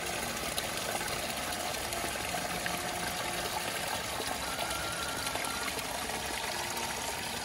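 Water running and trickling steadily: a continuous pouring sound.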